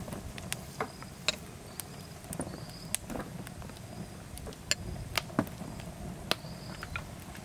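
Wood fire crackling, with irregular sharp pops over a low steady rumble.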